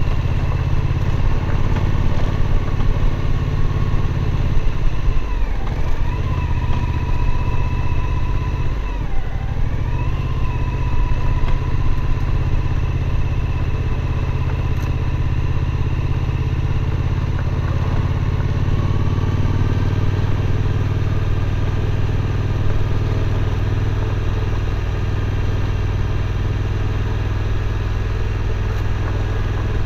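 Suzuki V-Strom 1050's 90-degree V-twin running under way. The engine speed dips briefly twice, about five and nine seconds in, then holds steady.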